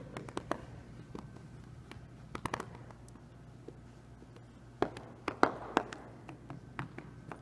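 Hands slapping a carpeted floor one after another, a scatter of short sharp slaps in small irregular clusters, the loudest a little past the middle.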